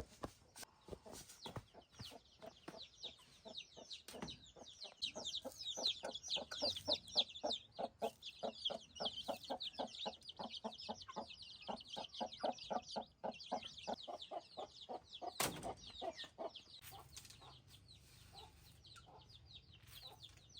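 A group of chickens clucking, with many high cheeping calls overlapping in a dense, busy chorus. A single sharp knock comes about two-thirds of the way through.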